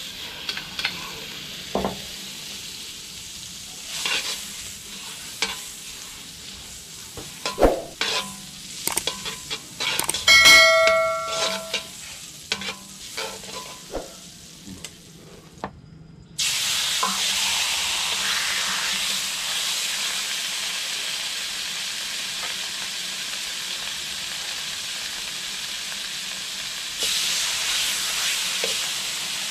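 Clicks and knocks of kitchen utensils, with a short pitched tone about ten seconds in. About sixteen seconds in, food goes into a hot pan and starts sizzling steadily, growing louder near the end.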